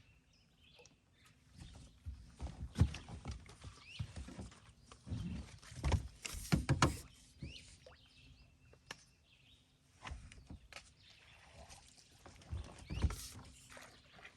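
Splashing and scattered knocks against an aluminium bass boat as a hooked bass is netted and brought aboard, the loudest splashes about six and thirteen seconds in. Birds chirp faintly in the background.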